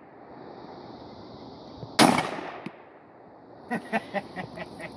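A single shotgun blast about two seconds in, dying away over about half a second. Near the end comes a quick run of light metallic clicks as the shotgun is handled.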